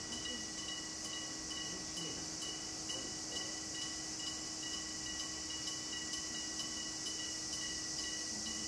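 Electric-bell railway level crossing warning bell ringing steadily, its pulse repeating about three times a second, signalling that a train is approaching.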